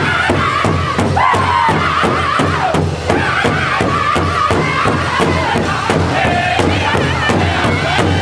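Powwow drum group: several men striking one large shared drum together with padded sticks in a steady, even beat of about three strokes a second, while singing a high-pitched, wavering chorus in unison. Women's voices join the song.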